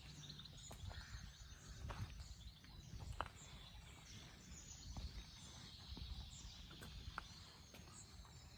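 Faint birdsong: many short high chirps from several small birds, over a low rumble, with a few sharp clicks.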